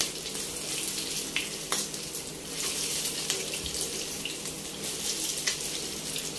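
Hot oil sizzling and spattering as egg-coated chicken cutlets shallow-fry in a grill pan. A few light clicks come as the cutlets are turned over.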